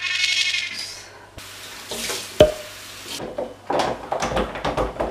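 Kitchen utensils and dishes being handled: a short rush of noise at the start, one sharp ringing clink about two and a half seconds in, then a fast run of clattering and scraping strokes from about four seconds in.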